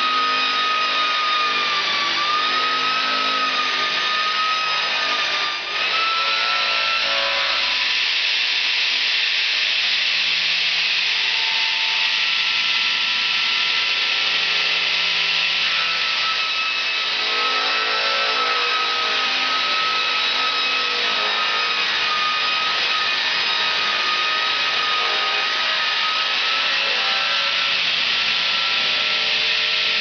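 Electric circular-blade sawmill cutting lengthwise through a log: a steady whine from the spinning blade with a constant hiss of wood being cut, dipping briefly about six seconds in.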